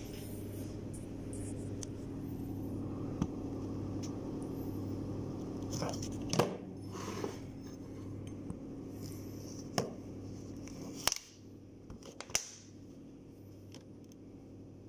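Scattered light handling sounds, short taps, rustles and scrapes, as lumpia wrappers and the phone are handled, over a steady low hum that drops in level about two-thirds of the way through.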